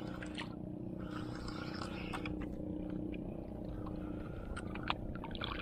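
A steady low mechanical hum, with a few light clicks near the end.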